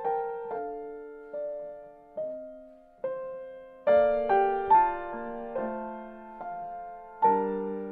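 Piano playing a slow melody, single notes at first and fuller chords from about four seconds in, each note fading after it is struck.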